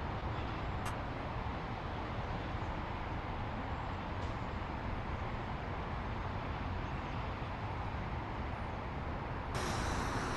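Steady rushing noise of a Onewheel electric skateboard being ridden, even and without distinct tones, strongest in the low range.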